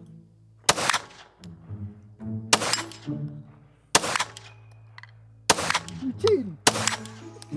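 Five 9mm Glock pistol shots fired slowly, roughly a second and a half apart, each a sharp crack with a short echo, over steady background music.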